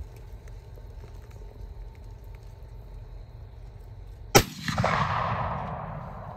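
A single shot from a CVA Optima V2 inline muzzleloader about four seconds in: one sharp crack, then the report rolling and echoing away over about two seconds.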